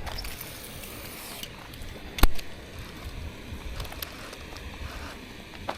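Quiet outdoor background with one sharp knock a little over two seconds in, and a few faint ticks.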